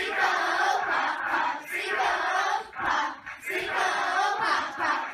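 A group of children chanting and shouting together in rhythm, in short phrases about once a second.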